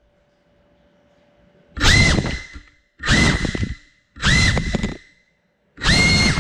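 GEPRC Cinelog 35 cinewhoop's brushless motors spinning up in four short bursts about a second apart, each a brief whine that rises and then drops off. The drone is throttled in quick blips while sitting crashed. The bursts start after a couple of seconds of near silence with a faint hum.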